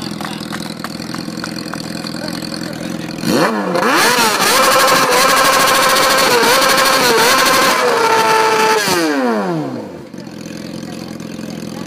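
Sport motorcycle engine idling, then revved up hard about three seconds in, held at high revs with small wavers for about five seconds, and let fall back to idle near the end, with a loud exhaust.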